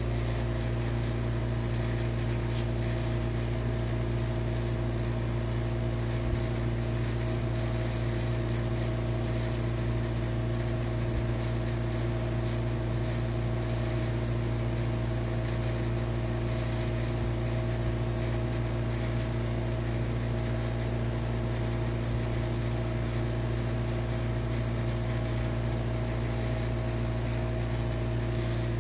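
A steady machine hum with several constant tones, unchanging throughout.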